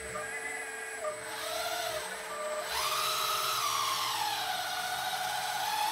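Electric hydraulic pump of a 1/14-scale LESU RC wheel excavator whining, its pitch gliding up and down as the hydraulic functions are worked and the pump speeds up with the stick inputs. About three seconds in it gets louder and higher, then settles lower.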